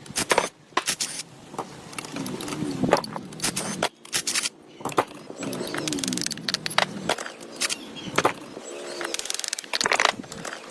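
Clicks and clinks of hand tools on metal parts, irregular and sharp, with three short squeaks along the way.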